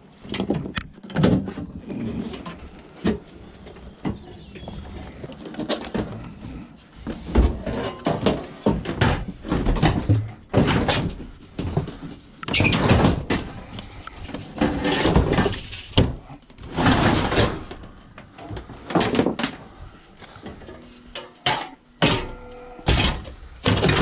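Repeated thuds, knocks and scrapes of a discarded washing machine being handled and loaded into a van, with several longer scraping drags of a second or two.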